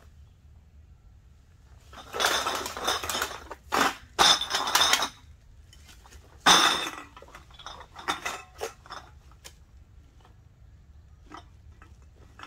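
Empty drink cans and bottles clinking and rattling together inside a black plastic garbage bag as the bag is lifted, shaken and set down. There are three loud bursts of clatter in the first seven seconds, then a few lighter clinks as the bag is handled.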